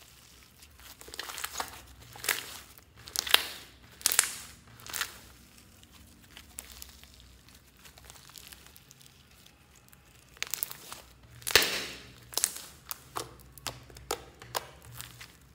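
Fluffy shaving-foam slime being squeezed, stretched and poked by hand: irregular wet pops and squishes, thinning out for a few seconds in the middle.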